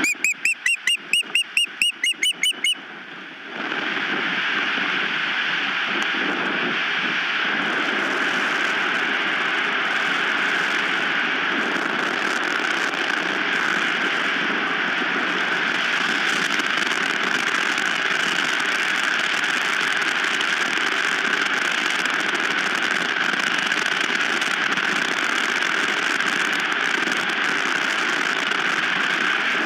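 An osprey gives a rapid run of about a dozen short, rising whistled calls, about four a second, typical of osprey alarm calling. The calls stop after nearly three seconds, and strong wind then blows steadily across the nest-cam microphone.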